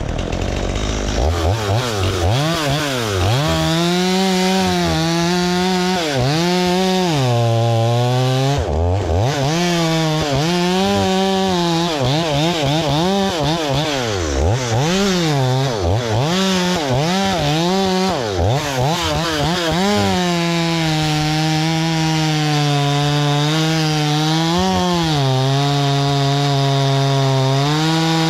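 Two-stroke chainsaw running hard while cutting a dry cedar tree. Its engine pitch rises and falls again and again for about the first twenty seconds, then holds steady at high speed with brief dips.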